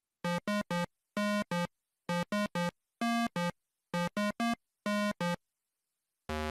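Chiptune-style synthesizer music: short, bleepy staccato notes in quick clusters of two or three, separated by brief silences. Near the end a lower, fuller note pattern starts.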